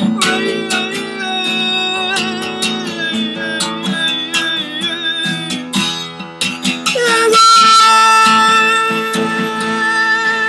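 A singer sings with a strummed steel-string acoustic guitar. About seven seconds in the voice holds one long, loud note over the chords.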